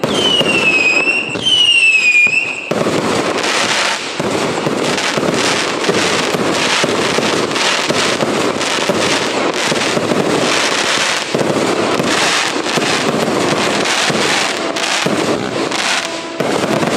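Consumer fireworks cake (multi-shot battery) firing. Two whistling shots fall in pitch in the first few seconds. From about three seconds in, a dense, rapid volley of bangs and crackle runs on.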